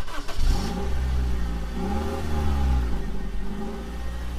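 Car engine running with a heavy low rumble, its pitch rising and falling about two seconds in.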